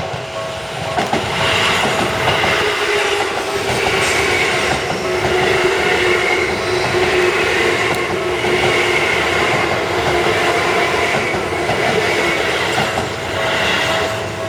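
Keisei 3600 series electric train passing over a level crossing, its wheels clattering over the rail joints in a steady, regularly repeating rhythm. The crossing's warning bell rings at the start and again near the end as the train clears.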